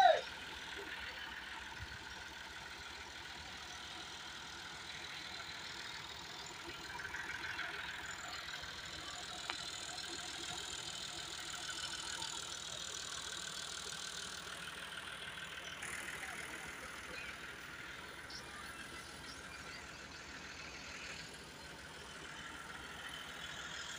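Diesel tractor engine running steadily at a low, even level, with one short sharp click about nine and a half seconds in.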